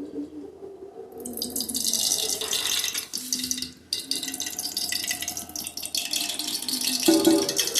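Water running from a kitchen tap into a sink, starting about a second in, cutting off briefly near the middle and then running again, with a few light knocks of things being handled under the stream.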